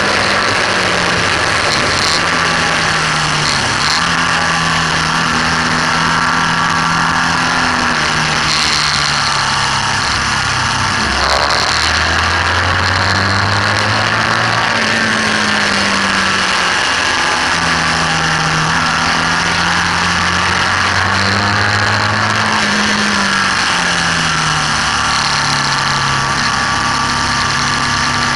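BMW R1200S boxer twin at speed on track, its engine note climbing and dropping in steps with throttle and gear changes, under a steady rush of wind noise.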